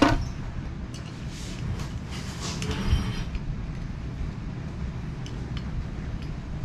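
Light clinks and scrapes of scooter parts being handled during assembly, over a steady low rumble.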